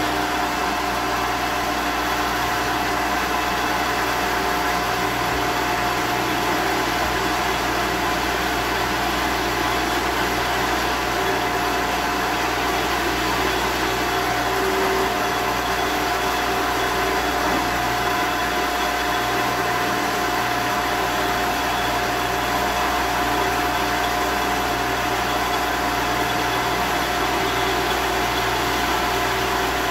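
1954 Shopsmith in drill-press mode running steadily, a constant motor hum with a steady whine, while its Forstner bit bores repeated holes into a solid wooden bass body.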